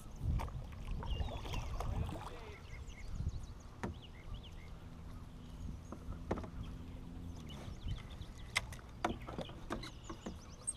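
A small paddled boat on the water: paddle strokes and water sloshing, with a few sharp knocks of the paddle or gear against the hull.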